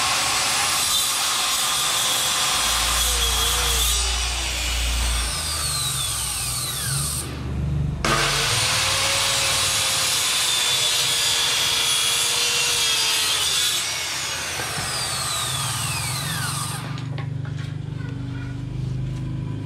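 Handheld electric circular saw cutting through wooden boards in two long passes, stopping briefly about seven seconds in, then cutting again until about seventeen seconds in. The whine falls in pitch near the end of each cut.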